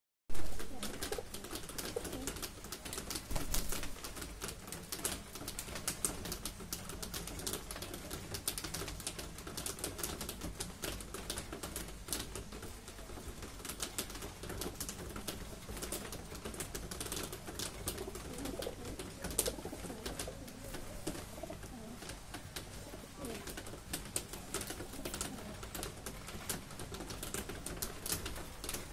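A flock of feral rock pigeons feeding on a tiled floor: many quick beak taps against the tiles, with low cooing underneath. There is one sharp knock at the very start.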